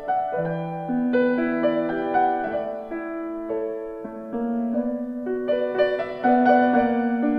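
Solo piano music: an improvised piece, a melody of notes struck one after another that ring on over each other.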